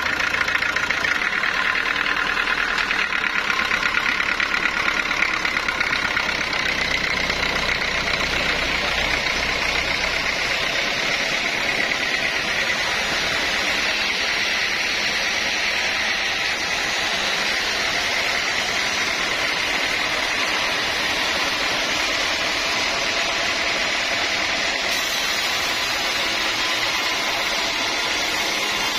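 Sawmill machinery running steadily, a continuous mechanical noise with a steady high whine over it.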